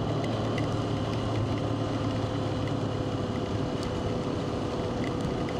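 Motorcycle running steadily on the road, its engine hum buried in heavy wind noise on the microphone.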